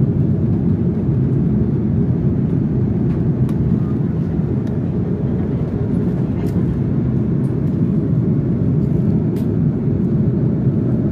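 Steady jet airliner cabin noise in cruise flight: a loud, even rush of engine and airflow heard from inside the cabin, with a few faint ticks.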